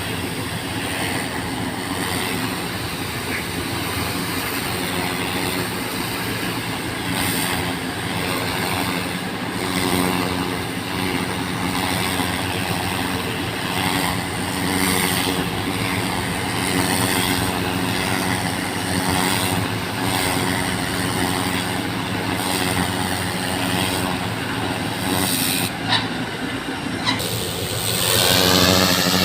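Engine of a water-flushing pump running steadily, with the hiss of a water jet spraying over pavement; it swells briefly near the end.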